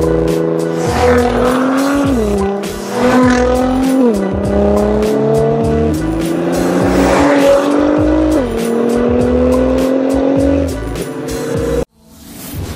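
Nissan GT-R's twin-turbo V6 with an Akrapovič exhaust pulling hard, its pitch climbing and dropping at gear changes about every two seconds, mixed with background music that has a steady beat. The sound cuts off abruptly near the end, and a short whoosh follows.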